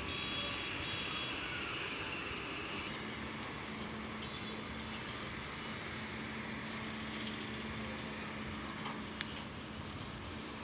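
Steady outdoor background noise. About three seconds in, a low steady hum and a faint, fast high-pitched ticking join it.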